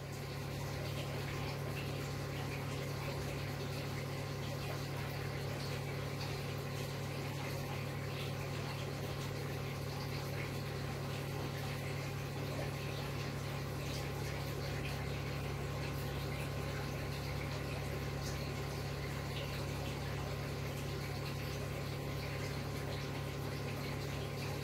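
A steady low hum with a faint watery hiss from aquarium air pumps and filters running.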